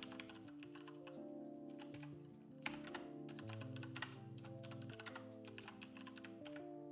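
Typing on a computer keyboard: irregular runs of sharp key clicks, over quiet background music with held notes.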